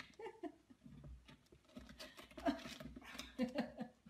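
A cat on a carpeted cat tree making faint short calls, with light clicks and scrabbling as it jumps up and clings to the perch.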